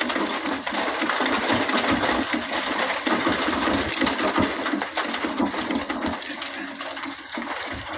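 Sand poured from an excavator bucket into a dump truck's steel bed: a dense, grainy rush full of small rattling impacts that eases off near the end.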